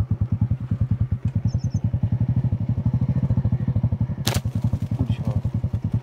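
Motorcycle engine idling with an even, rapid chugging beat. There is one sharp click about four seconds in.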